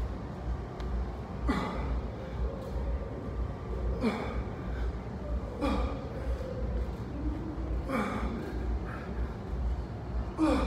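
A man breathing hard under strain from the effort of a 100 lb dumbbell Turkish get-up. There are five forceful exhales or grunts about two seconds apart, each dropping in pitch, the last one the loudest, over a low steady hum.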